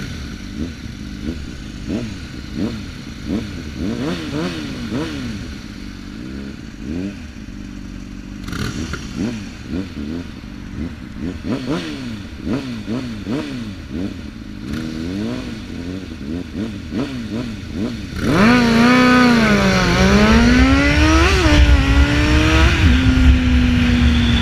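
Sport-bike engine on a red Honda blipping its throttle over and over at a standstill, then launching hard about three-quarters of the way in and climbing through the gears with a shift or two, ending at a steady speed with wind rushing over the helmet microphone.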